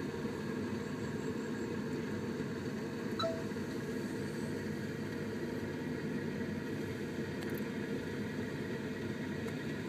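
Steady low hum of a car engine idling, heard from inside the cabin.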